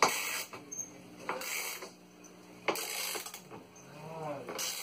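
Four short rasping metal-on-metal strokes, about one every second and a half, as a hand tool tightens the mounting bolts of a steel sliding barn door track.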